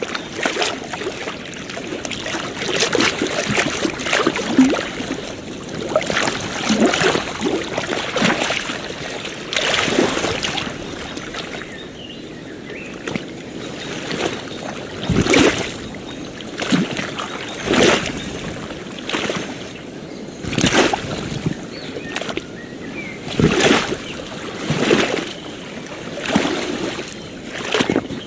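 Small ocean waves lapping and slapping at the water's edge, a sharp splash every second or two over a steady wash of water.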